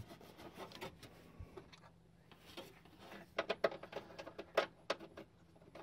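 Light clicks and rustles of hands handling a plastic-covered wiring harness and small fasteners in a truck's engine bay, quiet at first, then a quick run of sharper clicks about three to five seconds in.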